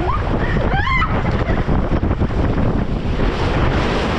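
Water rushing under a large inflatable family raft as it slides down a water slide, with wind buffeting the microphone. A couple of short rising squeals sound about a second in.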